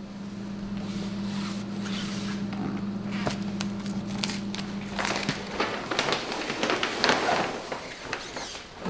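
A steady low hum, then, from about halfway through, stiff sailcloth rustling and crinkling as a long sail is handled and pulled along a work table, with scattered small clicks.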